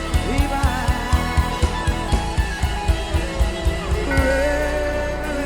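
Instrumental gospel worship music led by guitar over a steady beat of about four hits a second. The beat drops out about four seconds in, leaving held notes ringing.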